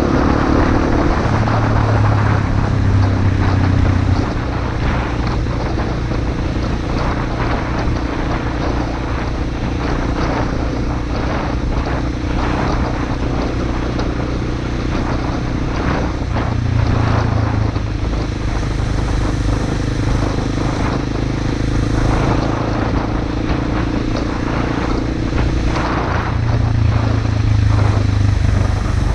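Honda XR250 Motard's air-cooled single-cylinder four-stroke engine running on the move, with a rushing noise over it. The engine note drops about four seconds in and climbs again around seventeen and twenty-six seconds as the throttle and gears change.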